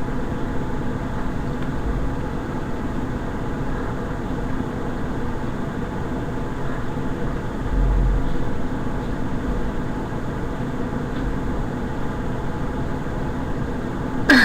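Steady background hum and hiss with a faint low thump about eight seconds in.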